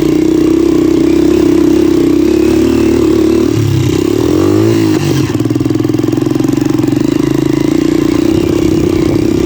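Motorcycle engine running steadily under way, its note dipping and then rising again about four seconds in.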